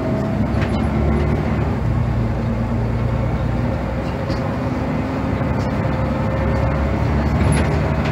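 Heuliez GX217 city bus's compressed-natural-gas engine and drivetrain running steadily under way, heard from inside the passenger cabin, with a whine that slowly falls in pitch.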